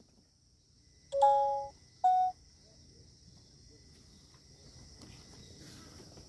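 Steady chirring of crickets or other insects. About a second in come two short beeps, the first a little longer and lower than the second.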